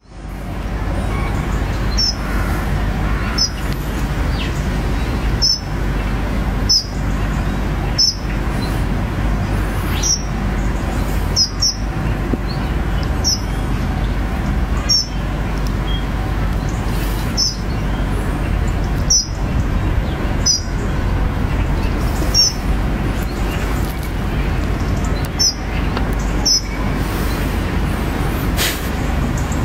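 Background music with a heavy, constant bass and a recurring beat, with a short high accent every second or two.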